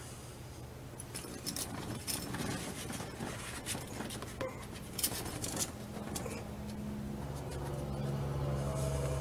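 Handling noise as a mesh canopy net is pressed against a plastic golf cart roof and marked: irregular small clicks, taps and scrapes. From about six seconds in, a low steady hum grows louder beneath them.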